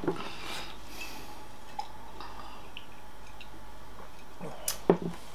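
Quiet room with a few faint small clicks and a sharper double click near the end, from glass mugs being handled and set down on a table while drinks are sipped.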